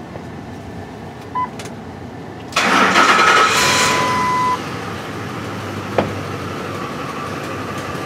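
A short beep, then the Ford F-150's 5.4-litre V8 cranks and catches about two and a half seconds in, and settles into a steady, weak idle. It is running starved of fuel, with low fuel rail pressure from a fuel delivery fault, and is close to stalling.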